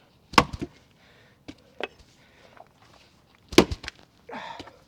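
Two hard strikes of a Tasmanian-pattern axe into a red oak round, about three seconds apart, each followed by a few smaller knocks of wood, then a short scraping noise near the end.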